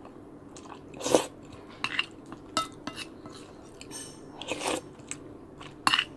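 Close-up eating sounds: chewing and slurping of sinigang soup and vegetables with rice, in a few short bursts, with occasional light clicks of a spoon against the bowl.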